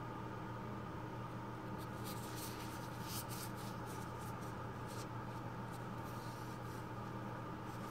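Hands in disposable gloves rubbing and brushing right at the microphone, making soft irregular rustles and scratches that start about two seconds in. A steady faint hum runs underneath.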